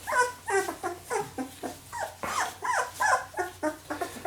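Newborn Labrador puppies whinging: a string of short high whimpers, about three a second, each rising and then falling in pitch.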